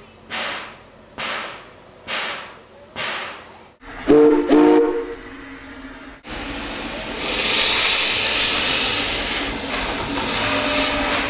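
Small steam locomotive: four exhaust chuffs about a second apart, then two short toots on its steam whistle, then a loud steady hiss of steam blowing out from the cylinder cocks.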